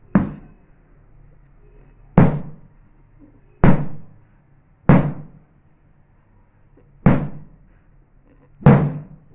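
Six heavy thumps, irregularly spaced one to two seconds apart, each struck sharply and dying away within about half a second.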